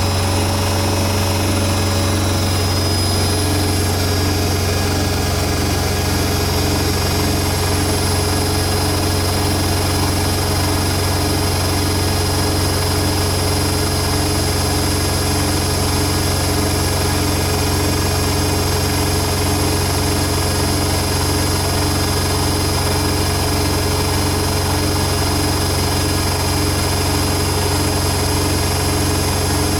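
Hoover Nextra HNL71463D washing machine in its fast final spin (up to 1400 rpm): the drum and motor run at a steady high speed with a deep hum and a high-pitched motor whine.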